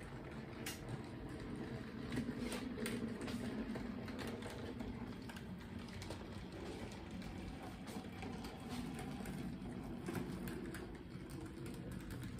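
Model steam locomotive pulling a passenger car along the layout track: a low steady hum from the running train with irregular light clicking from its wheels on the track.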